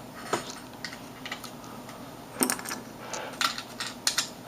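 Spare plastic keycaps clicking and clattering as they are handled and put into a small case, a handful of separate sharp clicks.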